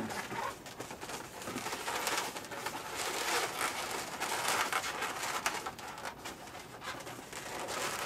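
Latex twisting balloons rubbing and squeaking against each other as a balloon sculpture is handled and a loose end is tucked into the twists.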